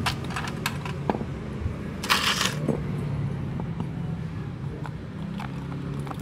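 Small knocks and clicks from a metal motorcycle cylinder head being handled and wiped with a rag, with one brief scrape about two seconds in, over a steady low hum.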